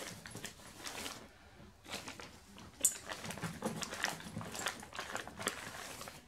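Clear plastic bag crinkling and rustling as a hand rummages in it, an irregular run of crackles with a sharp click just under three seconds in.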